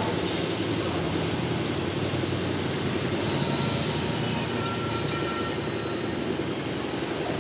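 Large diesel coach engine idling steadily, a low, even rumble.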